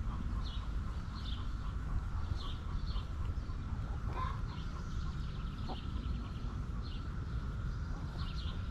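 Backyard chickens clucking, with short high chirping calls repeating throughout over a steady low rumble.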